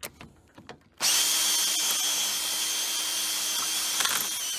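A few light clicks, then a power drill running steadily for about three and a half seconds and stopping, drilling out a rivet hole in the boat's boom end cap to widen it so a new rivet will seat fully.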